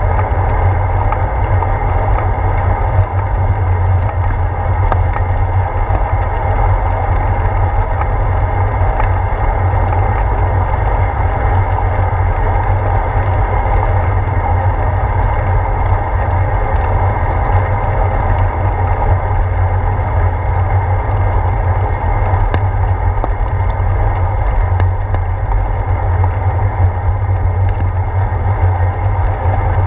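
Steady low rumble of wind and road vibration on a handlebar-mounted GoPro as a bicycle rolls along wet pavement, with tyre hiss over it.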